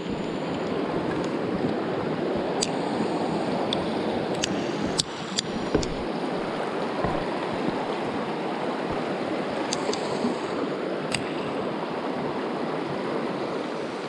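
Shallow, fast mountain stream rushing over rocks and stones: a steady, even rush of water, with a few faint clicks scattered through it.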